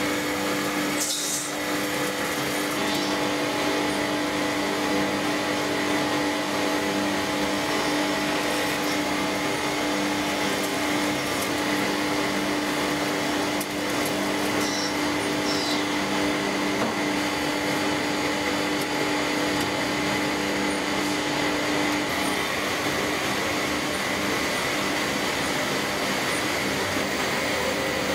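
CNC lathe running and turning a metal step-drill blank: a steady machine hum with the hiss of cutting, its pitch shifting slightly about two-thirds of the way through.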